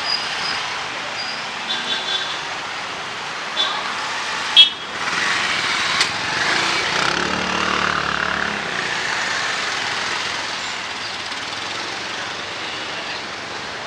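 Street ambience with motor traffic: a steady wash of road noise, a vehicle passing about seven to eight and a half seconds in, a few short high chirps, and one sharp click about four and a half seconds in.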